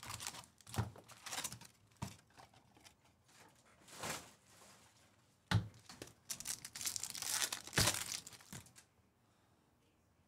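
Plastic and foil packaging of a box of 2019 Topps Chrome Jumbo baseball cards being torn open and crinkled in repeated rustling bursts, with two sharp knocks in the second half.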